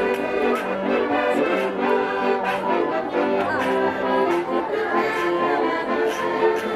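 Folk band of fiddles and a double bass playing Czech traditional music with a steady beat.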